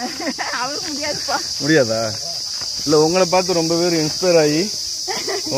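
Steady, high-pitched chorus of forest insects, with people talking over it in stretches.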